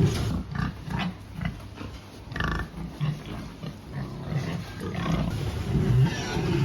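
Pigs grunting in short, irregular bursts, with a brief squeal about two and a half seconds in.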